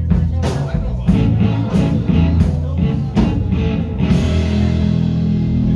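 Rock band playing without vocals, electric guitar over bass and drums, with regular drum hits, then a cymbal crash and a held chord about four seconds in, as at the close of a song.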